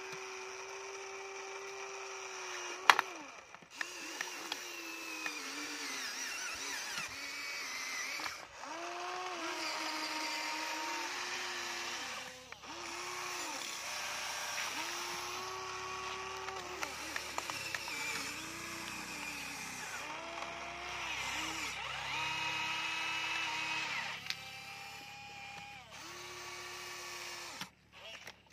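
Electric motors of a Huina remote-control toy excavator whining in stretches of a few seconds as it works, stopping and starting again with small shifts in pitch. There is a sharp knock about three seconds in, and a few light clicks later.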